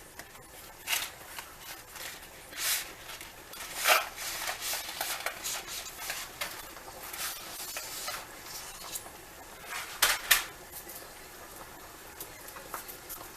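Dry spaghetti noodles rattling in their cardboard box and clattering into a pot, in a string of uneven rustles and knocks.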